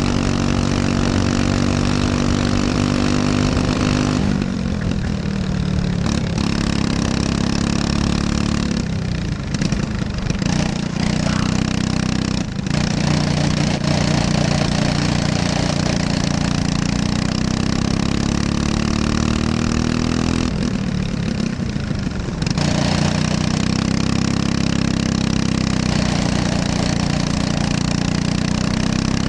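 Briggs & Stratton LO206 single-cylinder four-stroke kart engine at racing speed, heard close from on board the kart. The engine note sags as the throttle comes off for corners, about four seconds in, again around nine to twelve seconds and around twenty-one seconds, and climbs back each time the kart pulls out.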